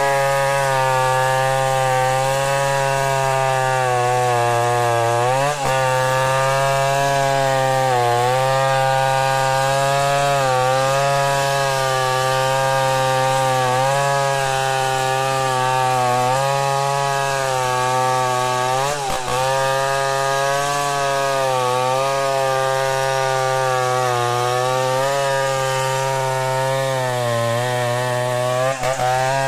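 Stihl 070 two-stroke chainsaw ripping a log lengthwise into planks under steady load. Its pitch wavers with the cut and dips briefly three times as the chain bogs down in the wood.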